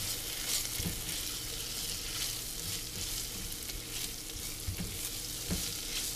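Arborio rice and onion toasting in hot olive oil, sizzling steadily, with the scrape and scuff of a silicone spatula stirring the grains around an enamelled pot.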